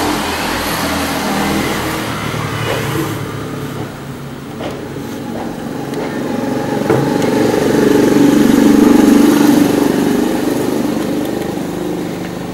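Motor vehicle engine running close by, swelling to its loudest about nine seconds in and then fading, with a couple of light knocks around five and seven seconds in.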